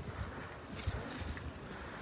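Street ambience around a gathered crowd, picked up on a handheld phone: low rumbling bumps of wind and handling on the microphone, a few faint clicks, and a brief faint high whistle about half a second in.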